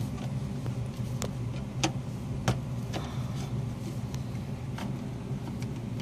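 Steady low mechanical hum of running HVAC equipment, with a handful of sharp clicks as a screwdriver works the terminal screws of a contactor.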